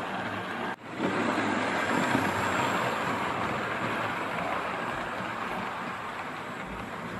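OO gauge model train running on its track close by: a steady rushing rumble of small wheels on rails. The sound drops out briefly just under a second in, then carries on.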